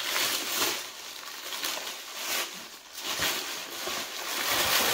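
Thin plastic bag crinkling and rustling in uneven swells as hands open it and dig inside.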